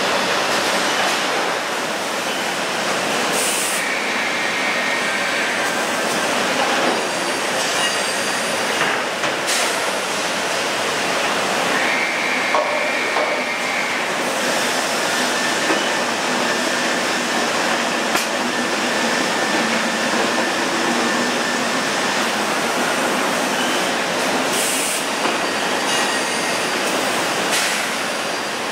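Biesse Skipper 100 CNC panel boring machine running: a steady, loud machine noise, with a faint high whine that comes in twice (about four and about twelve seconds in) and a few short clicks.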